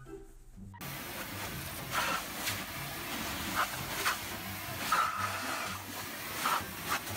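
Pet dryer blowing air through a hose nozzle onto a wet dog: a loud, steady rushing hiss that starts about a second in, with several short sharp sounds over it.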